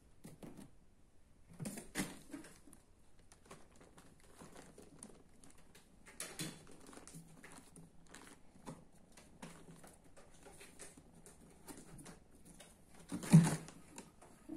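Kittens scrabbling at play: irregular scratching, rustling and small knocks, with a louder thump near the end.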